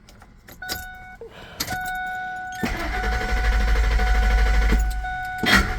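2003 Ford F-150's starter cranking the engine without it firing, the no-code-no-start immobilizer being armed, under a steady electronic beep tone. The cranking breaks off briefly with a click near the end, then starts again.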